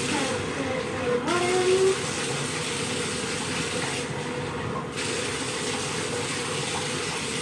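Bathtub tap running steadily into the tub during a dog's bath, a constant hiss of water. About a second and a half in comes a short rising squeak, the loudest moment.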